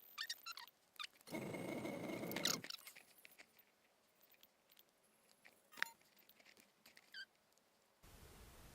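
Close handling noises: scattered small clicks, a scraping rustle lasting about a second and a half about a second in, and one sharp click near the six-second mark.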